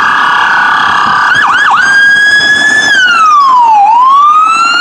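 Police car siren sounding. A steady tone with a few quick chirps, then a wail that falls for about a second and rises again.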